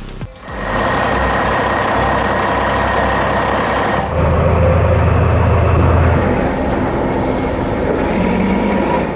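Heavy vehicle engine sound effect running steadily, with a louder low rumble for about two seconds from around four seconds in.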